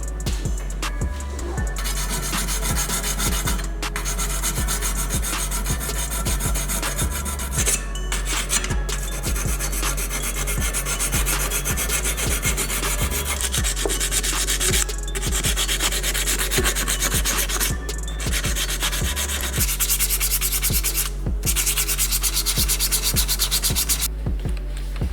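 Sandpaper rubbed back and forth by hand on a diecast model car's body, in quick repeated strokes with a few short pauses.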